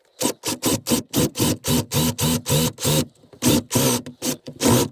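Drill spinning a hole saw into the wooden framing in short rapid pulses, about four a second, with a brief pause about three seconds in.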